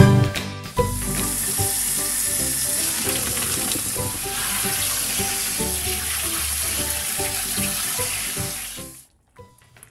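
Kitchen tap running and noodle water poured from a pot onto cooked egg noodles in a metal colander in a stainless-steel sink: a steady splashing hiss that starts about a second in and stops near the end.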